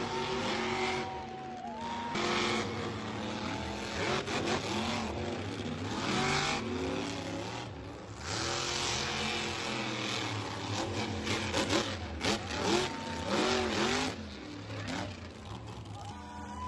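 Several monster trucks' engines revving, their pitch rising and falling over and over.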